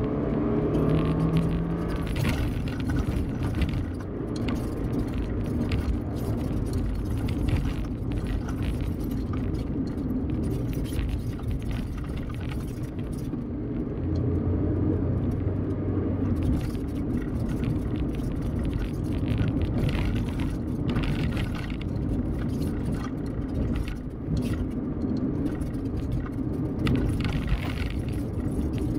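Steady driving noise of a vehicle cruising along a highway: engine and tyre rumble with the level rising and falling a little, and a few brief knocks.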